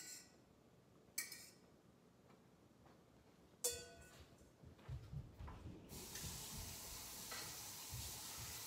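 A metal utensil clinks against a stainless steel mixing bowl three times, each ringing briefly. A few soft footstep thumps follow, then about six seconds in a kitchen sink faucet starts running steadily.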